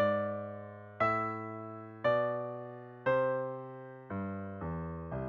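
Piano playing loud block chords about once a second, each left to ring and fade, with two quicker chords near the end.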